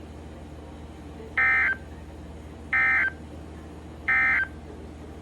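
Emergency Alert System end-of-message signal: three short bursts of screeching digital data tones, about a second and a half apart, marking the end of the tornado warning broadcast.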